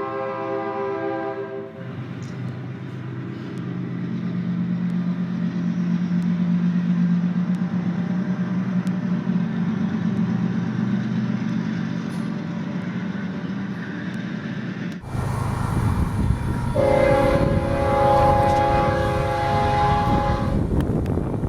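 A fouled locomotive horn's chord cuts off about two seconds in, followed by the steady low rumble of the train running past. After an abrupt cut, with wind on the microphone, another fouled train horn sounds one blast of about four seconds near the end.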